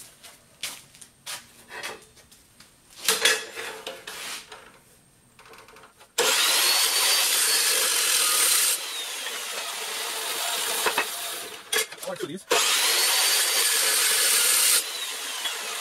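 Metal-cutting chop saw cutting steel stock. After a few light handling knocks, the motor starts about six seconds in and the blade grinds loudly through the steel, then runs on at a lower level. A second loud cut starts about twelve seconds in and eases off near the end.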